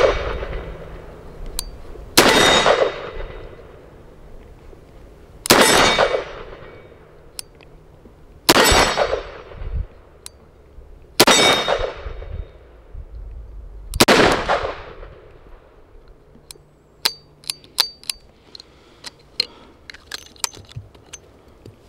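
Five suppressed shots from a .357 Magnum Chiappa Rhino revolver, about three seconds apart, each followed by the ringing clang of a struck steel target. Near the end come light metallic clicks as the cylinder is opened and the empty cases are ejected.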